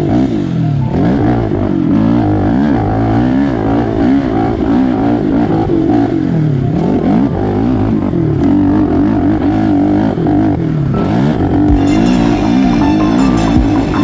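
Single-cylinder four-stroke engine of a Suzuki LTR450 quad, revving up and down over and over as it is ridden.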